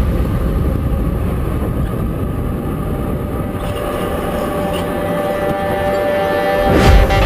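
Go-kart running on an indoor track, a steady mechanical hum with a few held tones, heard from a camera mounted on the kart. Music comes back in near the end.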